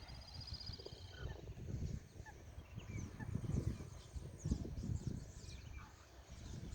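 Small birds chirping: scattered short high calls, with a brief trill about half a second in, over a low, uneven rumble.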